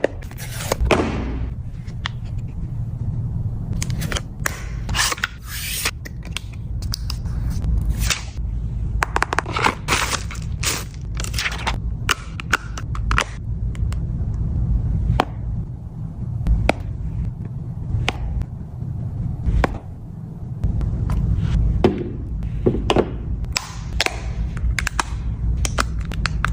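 Irregular clicks, taps and scrapes as a phone, its case and packaging are handled, over a steady low hum.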